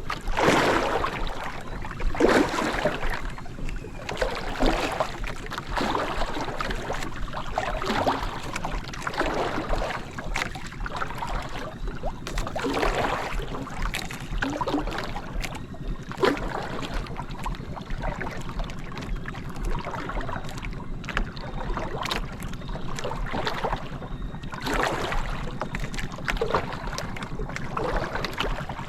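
Water slapping and splashing irregularly against the hull of a small boat at sea, with some wind on the microphone and a steady low hum underneath.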